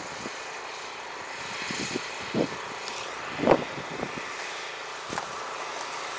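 Steady low hum of a tractor engine running under an even outdoor hiss, with a few soft footsteps on loose tilled soil.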